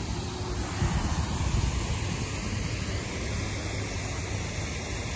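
Wind rumbling on the microphone, gusting harder about a second in, over a steady rushing hiss.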